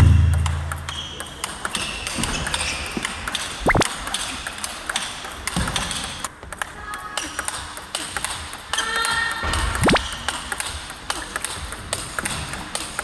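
A table tennis rally: the celluloid ball ticking sharply off the rubber-faced bats and the table over and over, with two short rising squeaks during play.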